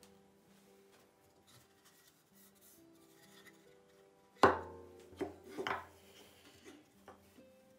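Pallet-wood boards set down and knocked together on a wooden table: one sharp wooden clack about four and a half seconds in, then a few lighter knocks, over soft background music.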